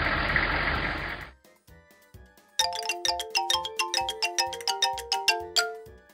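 A loud hiss over a low hum cuts off about a second in. Then comes a cartoon sound effect of bright chiming bell notes running quickly up and down for about three seconds, over faint soft thumps of background music.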